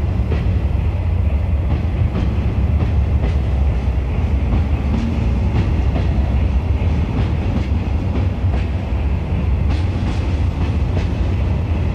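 Heavy railway wagon rolling on track: a steady low rumble with occasional faint clacks of the wheels.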